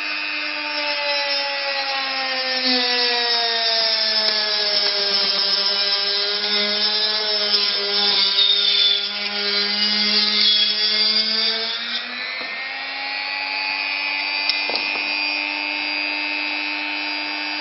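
High-speed rotary tool with a cutting wheel whining as it cuts into light modelling foam, with a rasping hiss from the cut. The whine sags in pitch under the load of the cut, then picks back up about two-thirds of the way through as the wheel runs free.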